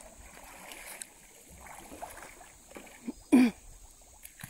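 Shallow river water sloshing and splashing around legs wading and around a floating cage of plastic drums being pushed, with a few small knocks. About three-quarters through comes one short, loud vocal shout, the loudest sound.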